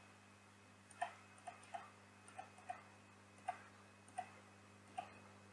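Computer mouse and keyboard clicks: about nine light, short clicks at irregular intervals, over a faint steady electrical hum.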